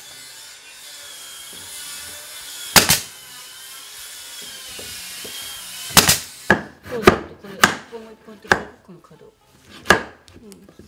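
Hammer knocking on solid-wood floorboards as they are driven together and fixed: a single sharp knock about a third of the way in, then about six knocks at uneven intervals in the second half.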